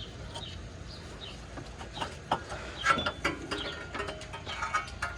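Scattered metallic clinks and knocks of an automotive AC compressor being worked loose and lifted out of the engine bay, with small birds chirping faintly.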